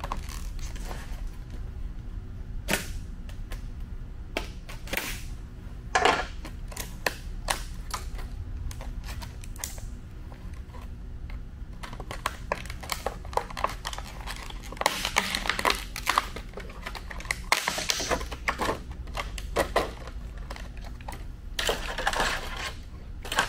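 Plastic packaging crinkling and rustling as a small package is opened by hand, with scattered sharp clicks and taps, busiest in the second half. A steady low hum runs underneath.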